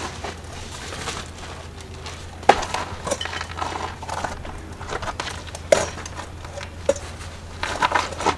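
Hands handling gardening materials: several sharp knocks and clicks, loudest about two and a half seconds in and near six seconds, with a cluster near the end and light rustling between, over a steady low hum.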